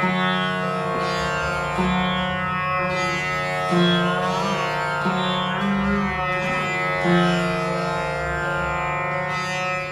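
Background music in Indian classical style: a plucked-string melody over a steady drone.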